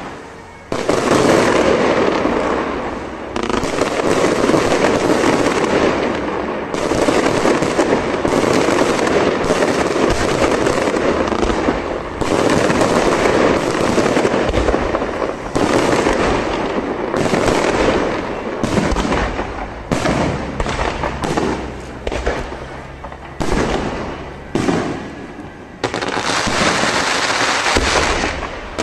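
Aerial fireworks barrage going off without pause: a dense crackle of many small bursts and crackling stars. Past the middle it breaks into shorter separate volleys, then runs dense again near the end.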